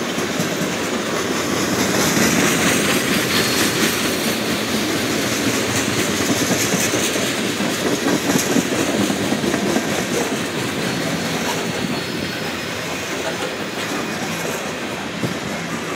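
Loaded freight cars, tank cars and then covered hoppers, rolling past close by: a steady noise of steel wheels on rail with the clickety-clack of wheels crossing rail joints.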